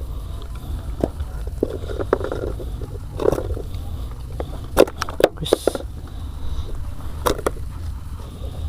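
Steady low rumble aboard a small boat, with scattered knocks and clatter and a few brief voice sounds.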